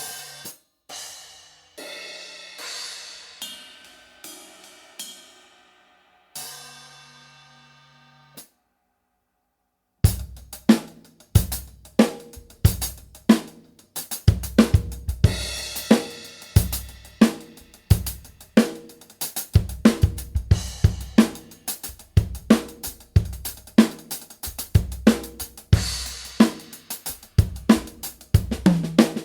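Drum kit with ARBOREA cymbals. In the first eight seconds or so, single cymbals and drums are struck one at a time and left to ring out; after a short pause a full groove starts, with bass drum, snare and cymbals played steadily.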